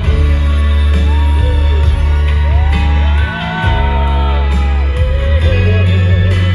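Live pop band music with a heavy bass line and a male voice singing into the microphone, with audience shouts and whoops over it.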